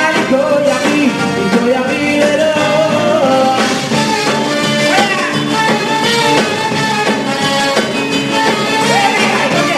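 Live concert band music playing continuously, with a melody line over full accompaniment.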